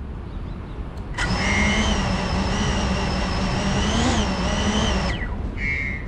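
Motors and propellers of a Cinelog35 cinewhoop FPV drone: a low rumble, then about a second in a loud, steady pitched whine comes in. It rises slightly in pitch near four seconds and cuts off abruptly about five seconds in.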